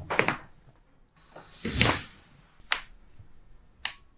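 Chiropractic adjustment: a brief rustle, a louder rushing noise about two seconds in, then two sharp single cracks about a second apart near the end.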